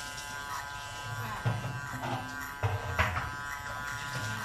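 KM-719 electric hair clipper buzzing steadily as it cuts hair, with short rougher bursts about a second and a half in and again about three seconds in.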